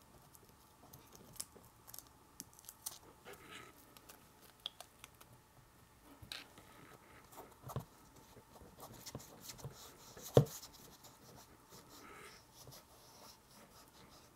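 Fingers and a microfiber cloth rubbing and pressing over a plastic screen protector on a Canon EOS R6's rear screen, with scattered small clicks and taps of handling. One sharper knock about ten seconds in is the loudest sound.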